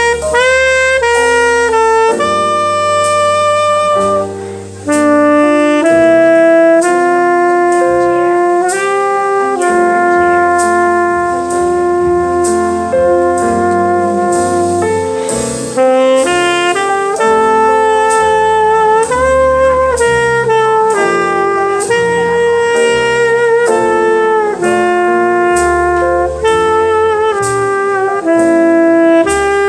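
Selmer Mark VII tenor saxophone playing a slow jazz ballad melody, long held notes, some with vibrato, over a recorded backing track with piano.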